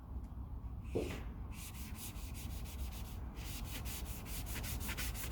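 Rapid, rhythmic rubbing or scrubbing strokes, about five a second, in two runs with a brief pause a little past three seconds in, over a steady low hum.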